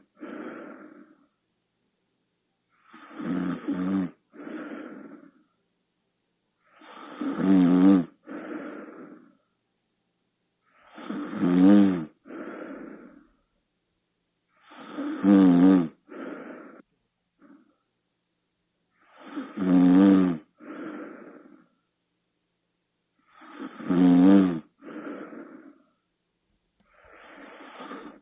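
A person snoring in a steady rhythm, about every four seconds. Each cycle is a loud, pitched snore followed by a shorter, softer, breathy tail, with silence between snores.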